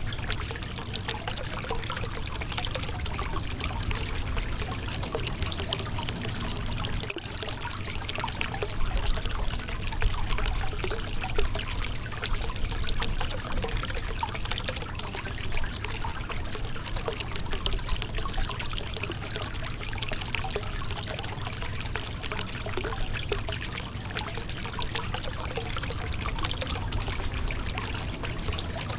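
Shallow river water flowing and splashing over a rocky bed: a steady babbling and trickling wash with a low rumble under it, swelling slightly now and then.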